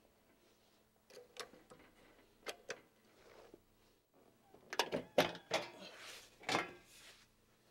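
Carpet tiles and a flat metal tool being handled on an office floor: scattered knocks and scrapes, with a burst of louder knocking and scraping about five seconds in as the tool works along the base of a partition panel.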